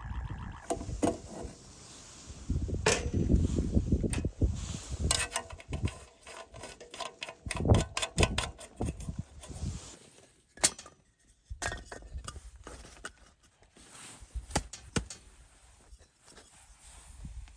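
Irregular knocks and clicks of hard objects being handled, with a denser stretch of low rumbling handling noise in the first few seconds and one sharp click about two-thirds of the way in.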